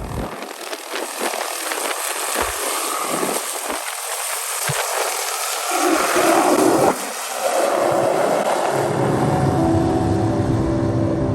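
A rushing noise that builds up and peaks about two-thirds of the way through, with music with steady held notes coming in near the end.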